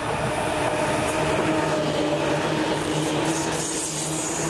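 Seibu Railway electric commuter train passing close by: wheels running on the rails with a steady motor hum, and a few sharp clicks in the second half.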